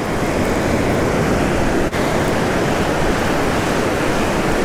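Gulf surf washing up the beach in shallow water, a steady loud rush of waves, with one brief drop-out about two seconds in.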